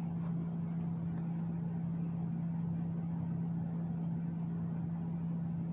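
Steady low-pitched hum of a machine running in the background, unchanging, with no other events.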